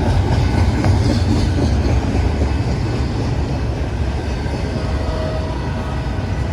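BNSF double-stack intermodal freight train rolling past on a grade, a loud, steady rumble of wheels on rail.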